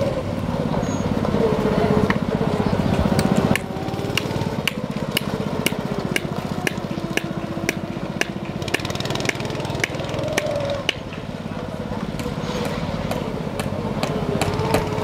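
Small go-kart engine running as the kart weaves through a cone slalom, its pitch rising and falling with the throttle. A series of sharp ticks runs through most of it.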